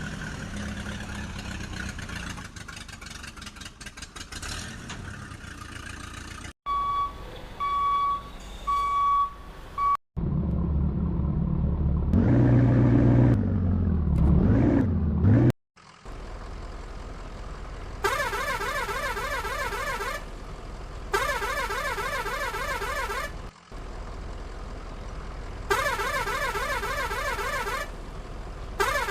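Vehicle sound effects in separate cut segments. First a rumbling run, then a pulsed beeping tone for a few seconds, then an engine revving up and down. After that comes a steady running sound with repeated bursts of a warbling tone.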